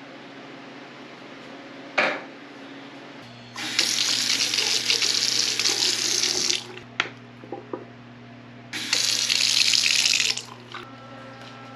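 Water running from a tap into a sink in two runs, the first about three seconds long and the second under two, with a click about two seconds in and a steady low hum underneath.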